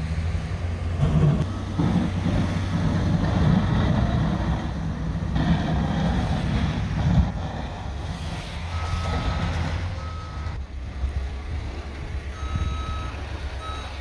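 Diesel engine of a Caterpillar 420F backhoe loader running while it works in snow, louder in the first half. In the second half a backup alarm beeps several times.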